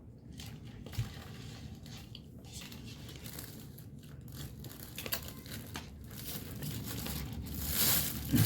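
Crinkly scraping and crunching of shaved ice while banana con yelo is being eaten, with a single knock about a second in and the sound growing louder near the end.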